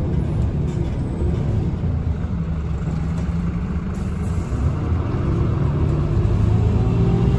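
Irisbus Agora Line city bus with a Voith automatic gearbox heard from inside the cabin: its diesel engine and driveline run steadily as the bus drives, growing louder in the second half.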